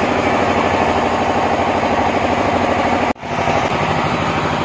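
A loud, steady engine-like running sound with a fast, even pulse. It drops out for an instant about three seconds in.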